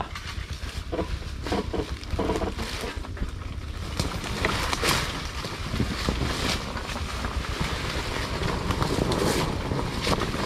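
Underbone motorcycle on a rough dirt trail: a steady rumble with wind buffeting the microphone, and a few sharp knocks and rattles partway through.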